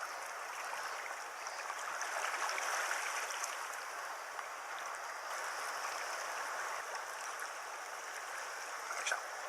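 Steady rushing of a river's flowing water, with a couple of faint clicks near the end.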